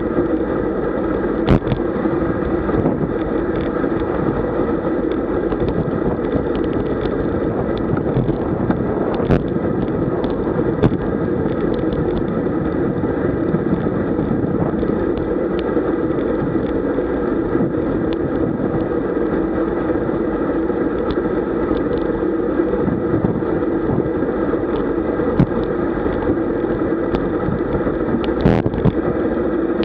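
Steady wind and tyre-on-asphalt noise from a road bicycle riding at about 40 km/h, picked up by a camera mounted on the bike, with a few sharp clicks from the bike over the road surface.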